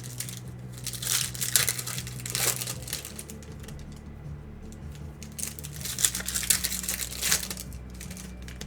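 Foil trading-card pack wrappers crinkling and tearing as packs are opened, in two spells about a second in and again past five seconds, over faint background music.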